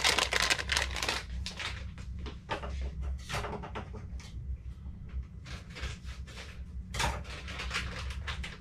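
Small parts and plastic packaging being handled on a workbench: irregular clicks and crinkling rustles, with a cluster of louder ones about seven seconds in, over a low steady hum.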